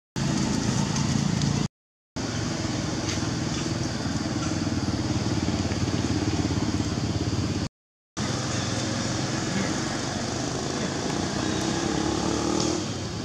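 A steady engine hum, like a motor vehicle running nearby, that cuts out to silence twice for about half a second.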